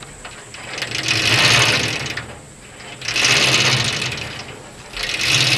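Fishing reel being cranked in three bursts of about a second and a half each, a rapid mechanical whirr of the gears close to the microphone.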